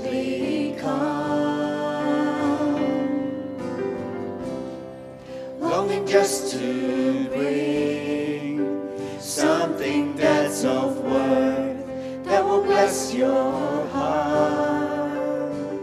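Christian worship song: voices singing a slow melody over sustained instrumental accompaniment.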